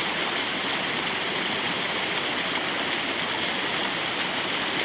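Waterfall on a small creek, rushing steadily: an even hiss of falling water that does not change.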